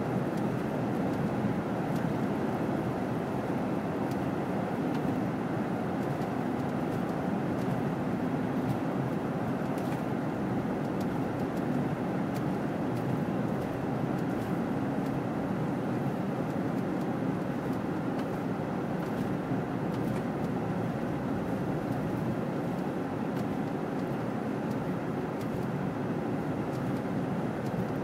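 Steady road and engine noise inside a vehicle's cabin as it drives at highway speed, an even rumble with a faint low hum and no sudden events.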